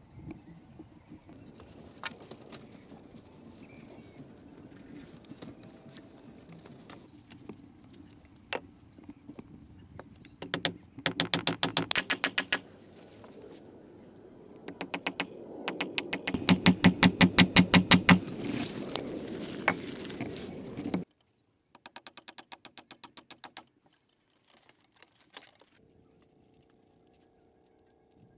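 Hammers striking bamboo in runs of rapid, even blows, nailing rungs onto a bamboo ladder: a short run, then a longer, louder one, then a quieter one, after a few single knocks.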